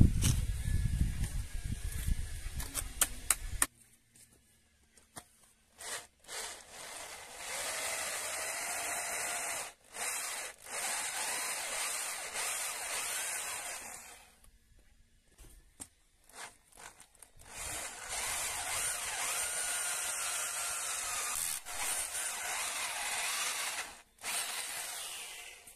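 Electric drill boring through the steel of a tiller's tine axle to drill out the old pin holes. It runs in two long stretches of about eight seconds each, with a pause of a few seconds between them, and its pitch wavers as it cuts. The first few seconds hold a low rumbling with knocks.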